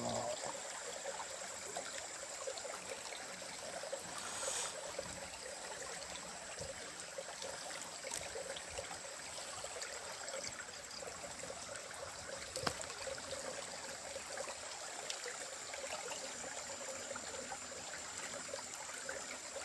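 A small stream's water flowing and trickling steadily, with a thin high steady whine underneath and a few faint clicks.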